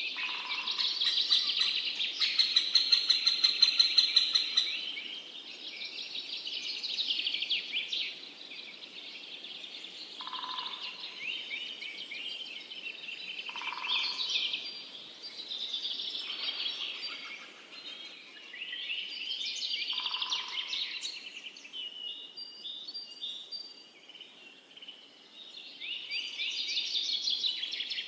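Several birds singing and chirping at once, a continuous chorus of overlapping trills and quick notes, loudest in a rapid repeated trill in the first few seconds, with a few short lower calls now and then.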